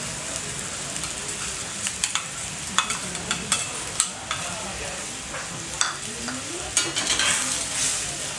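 Chicken and freshly added chili spice paste frying in hot coconut oil, a steady sizzle, with irregular clinks and scrapes of a utensil stirring against the pan from about two seconds in.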